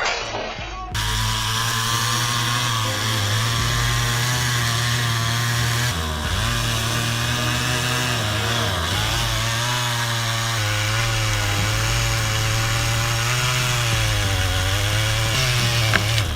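Chainsaw engine running steadily, its pitch wavering up and down from about the middle on as it works through the wood.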